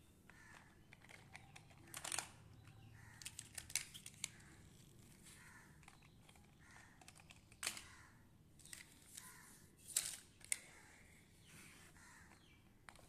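Plastic toy cars handled and set down among large plastic building blocks: scattered sharp plastic clicks and light clatters, with quiet stretches between.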